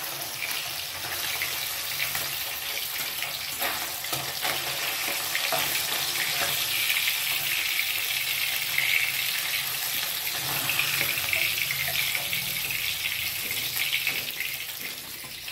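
Small tangra fish frying in hot mustard oil in a wok: a steady sizzle, with a few light clicks of a metal spatula as the fried fish are lifted out.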